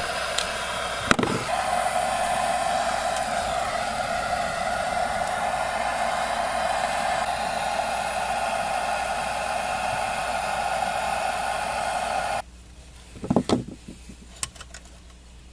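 Soldering torch flame hissing steadily while heating a copper pipe joint to sweat-solder a fitting, shut off suddenly about twelve seconds in. A few short metallic clanks follow near the end.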